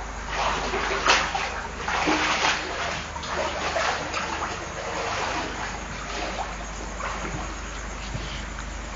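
Feet wading through shin-deep floodwater, splashing and sloshing with each step. The splashes are loudest in the first four seconds, then settle into softer sloshing.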